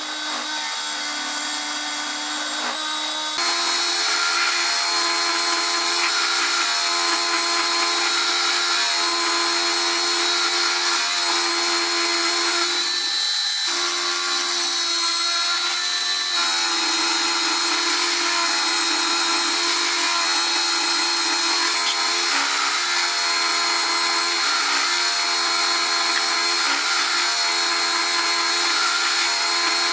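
Milling machine spindle running a carbide end mill through mild steel under flood coolant: a steady machine whine over the constant hiss of the cut. The sound steps up louder about three seconds in and briefly dips near the middle.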